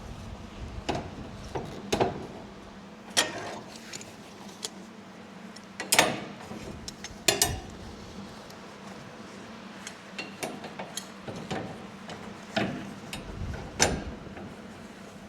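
Scattered metallic knocks and clanks, about eight of them, some ringing briefly: a steel plate and clamps being handled and adjusted on a steel boat deck. A faint steady hum runs underneath.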